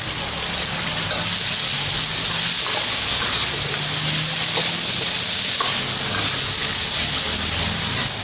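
Chopped green tomatoes, chilies, shallots and garlic sizzling in hot oil in a steel wok, stirred with a metal ladle. The sizzle is a steady hiss that gets louder about a second in.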